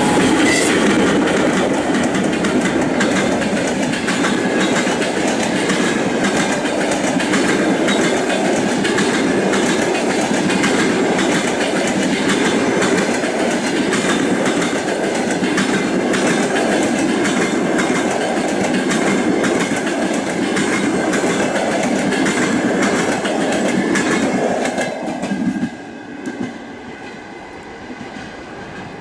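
Passenger coaches of a long-distance train rolling past behind a ChS7 electric locomotive, the wheels clicking over the rails in a steady clickety-clack. The sound drops off sharply about 25 seconds in as the last coach goes by.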